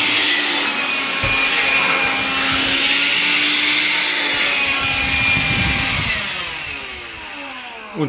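AEG CX7-1-30EB cordless vacuum running as a handheld, a steady motor sound. About six seconds in, its pitch falls and it fades as the motor winds down: the battery has run flat.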